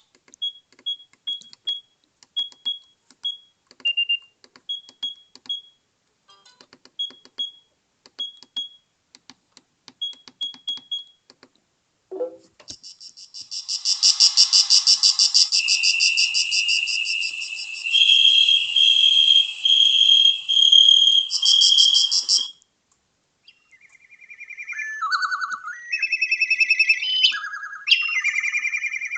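Sagem my700X mobile phone playing its built-in ringtones one after another. First comes a sparse pattern of short, high chirping beeps and clicks. About thirteen seconds in, a dense electronic tone with a high whistle takes over. About twenty-four seconds in, a tune of electronic notes follows.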